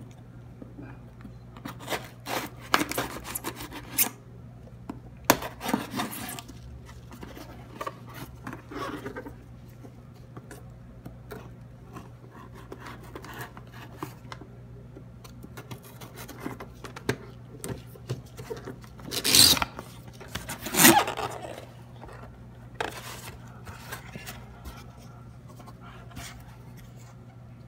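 Scissors cutting the packing tape on a cardboard shipping box, then cardboard rubbing and scraping as the box is handled and its flaps opened, in short irregular spells. Two louder scrapes come about two-thirds of the way in.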